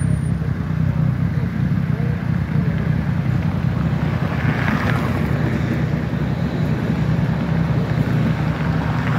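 City street traffic: cars driving past close by over a steady low rumble, with one nearer car swelling and passing about five seconds in.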